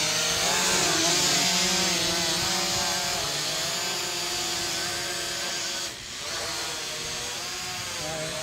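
ProMark Shadow GPS quadcopter drone taking off, its propellers buzzing with a motor whine that wavers in pitch as it climbs. The sound drops off sharply about six seconds in, then carries on somewhat quieter.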